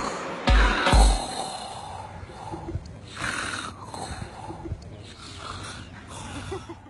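A man snoring in his sleep: a few rough, noisy snores spaced a second or more apart. In the first second there are two deep, loud bass thumps from a beat mixed out of the snores.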